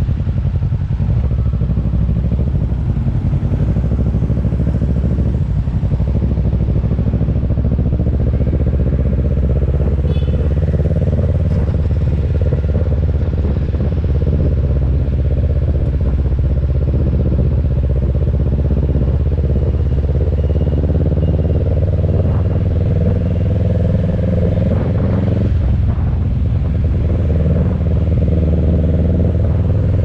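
Motorcycle engine running while riding. The engine note slowly climbs, dips briefly about 25 seconds in, then climbs again.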